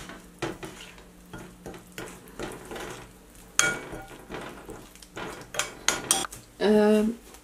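Metal spoon stirring an oily spice marinade in a ceramic bowl, with irregular clinks and scrapes against the bowl. Near the end comes a brief pitched sound, about half a second long and louder than the stirring.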